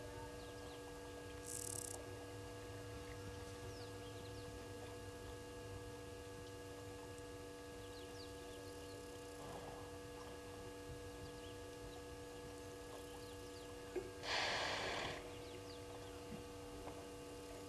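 Steady hum of several even tones over a low rumble, with faint scattered chirps. A brief high hiss comes about two seconds in, and a louder rush of noise lasting about a second comes near the end.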